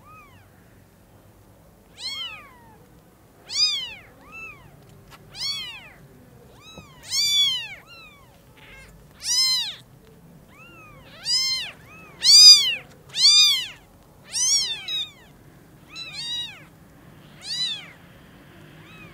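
Newborn kittens mewing over and over, about a dozen high-pitched calls that each rise and fall in pitch, one every second or two, loudest just past the middle.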